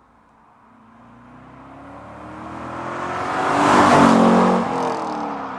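2002 Chevrolet Corvette C5 Z06's 5.7-litre LS6 V8 with titanium exhaust, driving past. It grows louder, passes about four seconds in, then drops in pitch and fades as it moves away.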